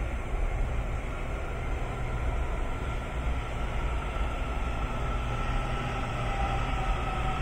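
Washington Metro 7000-series train pulling into an underground station, with a steady low rumble of wheels on rail. Near the end a motor whine comes up and slowly drops in pitch as the train slows.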